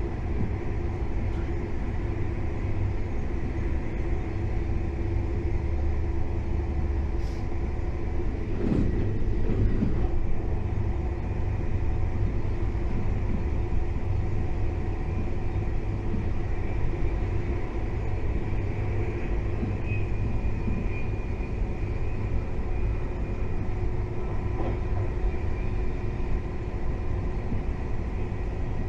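KTX high-speed train running at speed: a steady, heavy low rumble with a faint steady whine above it, and a brief swell about nine seconds in.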